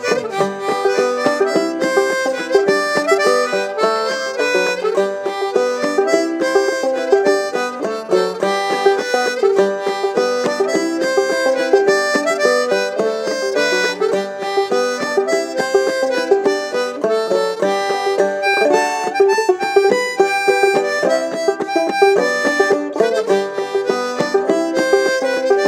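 Harmonica playing the melody over clawhammer-style banjo: an instrumental break in a bluegrass song, with quick plucked banjo notes under held harmonica tones.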